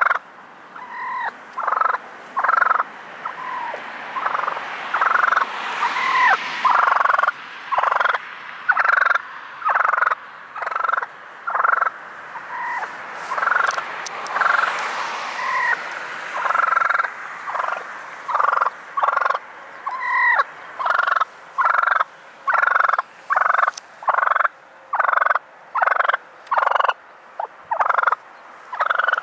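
Wild turkey tom calling over and over at close range, short loud calls coming about once a second, some with a quick rise or fall in pitch.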